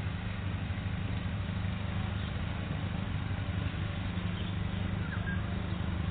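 Steady low outdoor rumble with an even hiss above it, and a brief faint chirp about five seconds in.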